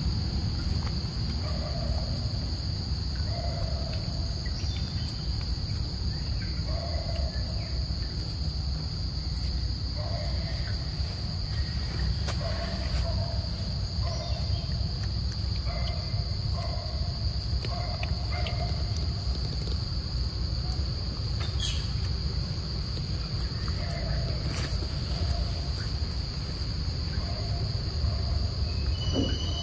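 Outdoor ambience dominated by a steady high-pitched insect drone over a low rumble. Short mid-pitched calls recur irregularly throughout, with a few faint clicks.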